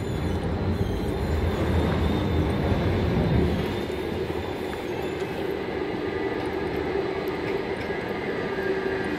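Electric city tram running along its street rails, a low rumble at first, then a steady motor hum and whine from about halfway through as it comes alongside.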